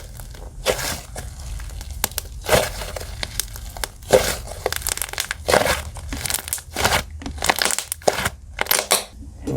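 Fluffy slime being squished and pressed by hand, giving irregular crackly pops and squishes, with a louder burst every second or so.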